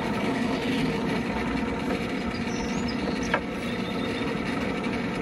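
Electric motor of a workshop machine running steadily, with a single sharp click a little past three seconds in.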